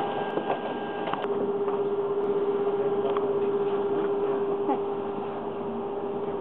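Steady machine hum in the bare cabin of an Airbus A380 flight-test aircraft, with a single steady tone coming in about a second in and holding.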